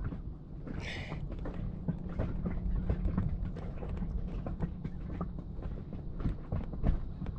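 Irregular light knocks and taps of handling in a small inflatable boat, over a steady low rumble of wind on the microphone, with a short hiss about a second in.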